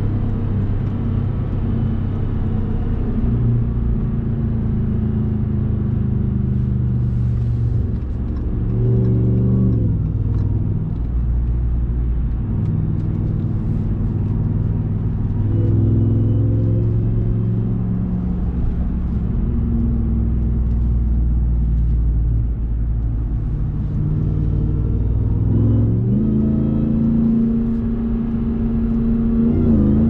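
2021 RAM 1500 TRX's supercharged 6.2-litre Hemi V8 running while the truck is driven. Its pitch shifts up and down with throttle and gear changes, climbing briefly about a third of the way in and twice near the end.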